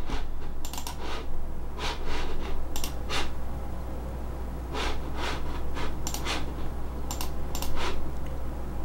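Irregular clicks and taps from computer mouse and keyboard use, about a dozen over several seconds, over a steady low hum.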